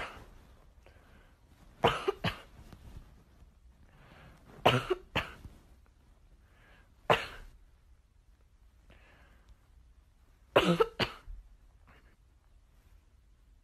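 Boston terrier giving short, gruff, cough-like woofs in little groups of one to three, with quiet gaps of a few seconds between them.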